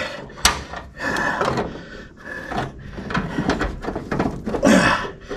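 Scraping, rustling and irregular knocks of a car's heater box assembly being shifted and pushed into place behind the dashboard, with wiring moved aside; one sharp knock about half a second in.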